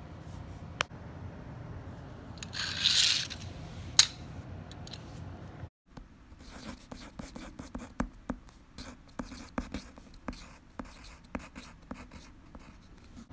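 Pencil writing on a sheet of paper on a hard tabletop: a run of short scratchy strokes in the second half as a word is written. Before that, a brief rustle about three seconds in and a couple of sharp ticks.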